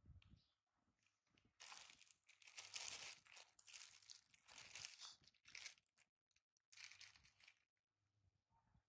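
Plastic bag crinkling as it is handled, in a long run of crackling bursts and then one shorter burst about seven seconds in.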